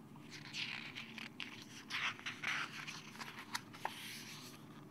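Faint paper rustling and scraping as a page of a hardcover picture book is turned and smoothed flat, with a few soft clicks of the pages.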